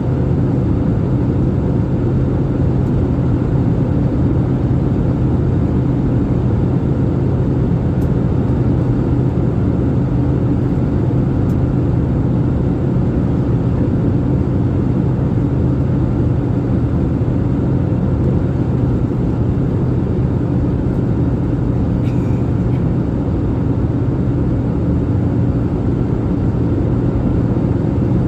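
Airliner cabin noise: a steady drone of engines and airflow with a low, constant hum underneath.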